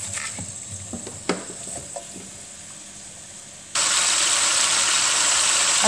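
Washed sponsali onions frying in extra-virgin olive oil in a pan. First come a few light knocks as the onions go into the pan. Then, about four seconds in, a loud, steady sizzle starts abruptly.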